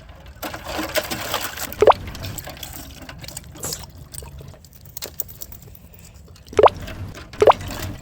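Liquid from a knocked-over cup splashing and dripping: a wet, splattering patch at first, then a few single drop-like plops.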